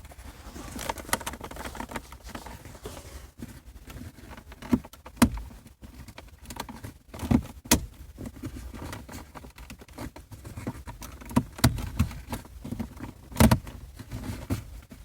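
Hands working the gear shifter and console trim of a 2013 Kia Optima: scattered plastic clicks, knocks and small rattles, with the sharpest knocks about five seconds in and again near the end.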